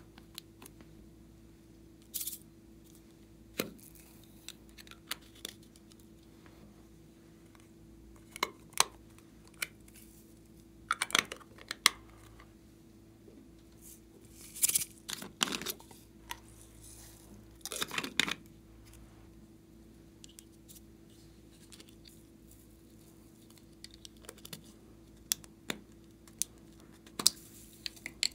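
Small plastic containers and caps being handled and opened by hand: scattered clicks and short crinkling, crackling bursts, loudest in a few clusters through the middle, over a faint steady hum.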